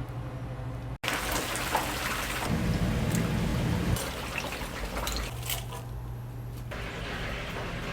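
Hot oil sizzling and crackling as chicken deep-fries, heard over a few abrupt cuts between shots, after a second of low hum.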